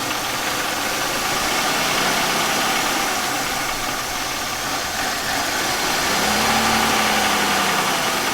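1999 Buick Century's 3.1-litre V6 idling, with a steady hiss over the engine sound that the owners put down to a vacuum leak.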